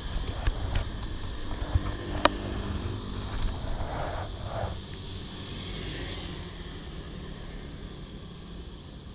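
Motor scooter's small engine running at low speed as it rolls to a stop, with a few sharp clicks in the first couple of seconds. The sound gets a little quieter about five seconds in.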